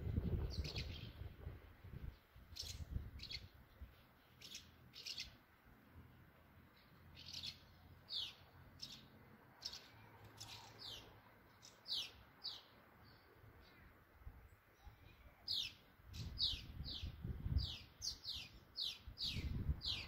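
Swallows twittering around their nest: short, quick chirps, some sliding down in pitch, coming thicker and faster over the last few seconds. A low rumble sits underneath at the very start and again near the end.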